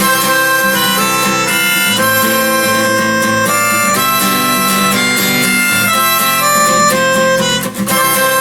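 Instrumental break in a song: harmonica playing the lead over acoustic guitar.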